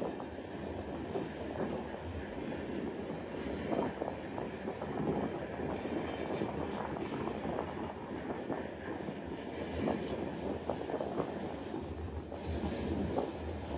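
Iron ore train running over the track, heard from on top of an open ore wagon: a steady rattling rumble of wagons and wheels on the rails, broken by frequent irregular clanks.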